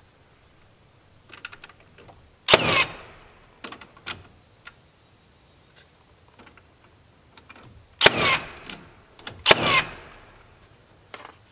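A cordless nail gun firing three times, driving fasteners through wooden furring strips over a foil reflective barrier. Each shot is a sharp bang with a brief falling whine. The first comes about two and a half seconds in, and the other two come close together near the end. Lighter clicks and handling knocks fall between the shots.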